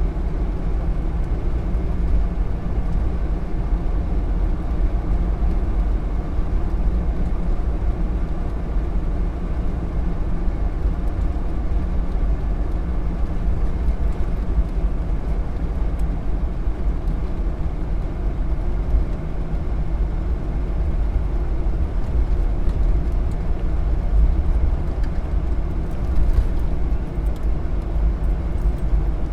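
Motor vehicle engine noise: a steady, low rumble that holds an even level, with no clear rise and fall of a car passing.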